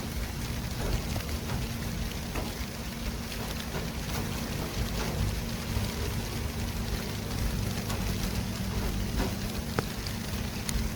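City traffic ambience: a steady low rumble of vehicles under a dense hiss, with a constant low hum and scattered light ticks.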